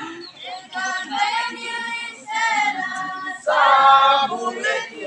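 A group of voices, mostly women's, singing a traditional dance song unaccompanied in short phrases. A louder held phrase comes about three and a half seconds in.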